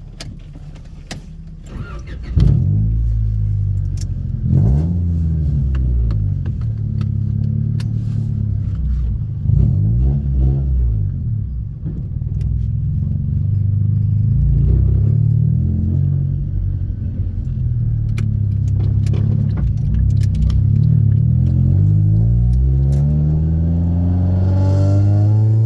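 Honda EK Civic engine with a full header and exhaust, its exhaust leaks freshly repaired. It comes in suddenly about two and a half seconds in, revs up and down several times as the car pulls away, runs steadily, then rises in pitch under acceleration near the end.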